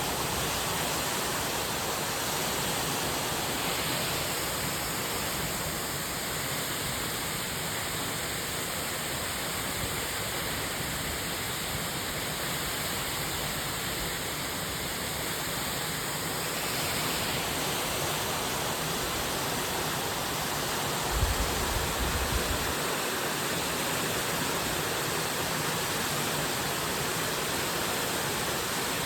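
Waterfall with a steady rush of falling water. About three quarters of the way through, a brief low rumble sounds over it.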